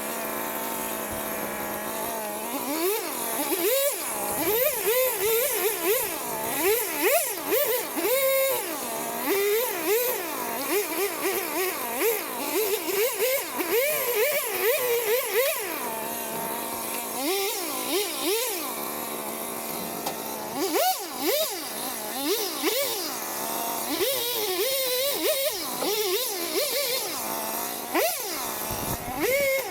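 Two-stroke chainsaw running and revving up and down over and over, its pitch rising and falling in quick sweeps as it cuts into wood.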